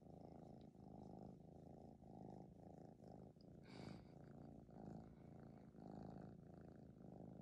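Maine Coon kitten purring softly and steadily, the purr swelling and fading with each breath about every two-thirds of a second. A brief rustle of fingers in fur comes about halfway through.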